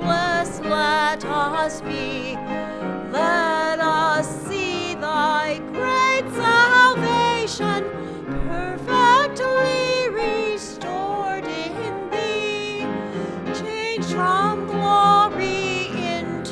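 Music: a voice sings long notes with vibrato over sustained instrumental accompaniment.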